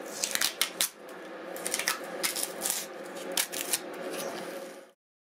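Masking tape being peeled off stainless-steel rods and a wooden board and crumpled by hand: a run of irregular crackles and sharp clicks over a steady background hum. The sound cuts off near the end.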